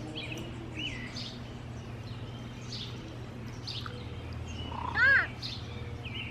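A house cat gives one short meow about five seconds in, rising and falling in pitch, while small birds chirp in the background.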